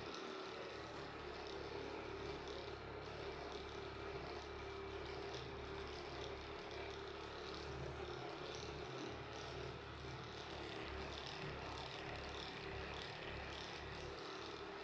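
Steady low hum of background room noise, unchanging throughout.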